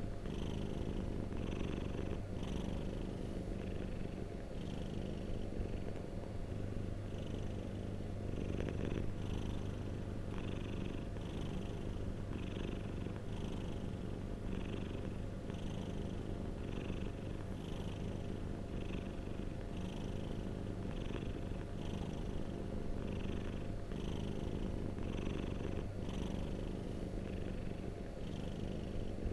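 Domestic cat purring continuously close to the microphone, a steady low purr that swells and eases in a rhythm of about once a second, with each breath.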